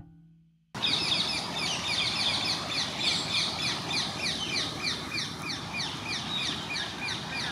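A flock of rose-ringed parakeets calling: a dense, unbroken run of short, shrill, falling calls, many a second, which starts abruptly after a moment of silence.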